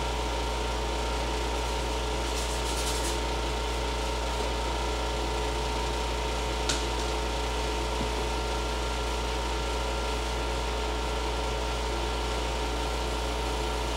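Window air conditioner running with a steady hum and a faint steady whine, with one short click about seven seconds in.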